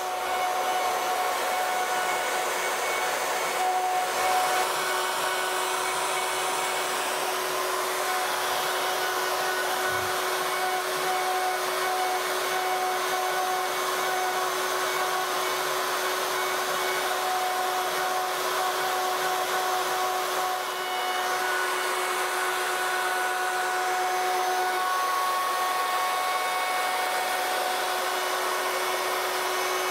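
Router spindle on a CNC Shark machine running steadily as its small bit carves lettering into a wooden board, a constant whine with a brief dip in level about two-thirds of the way through.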